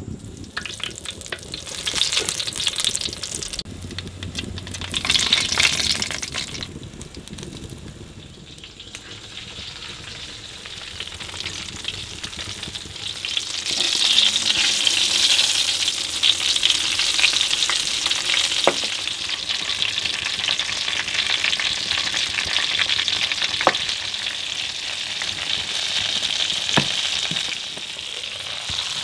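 Food frying in hot oil, sizzling. It comes in two short spells at first, then rises about halfway through to a steady, louder sizzle, with a few sharp clicks.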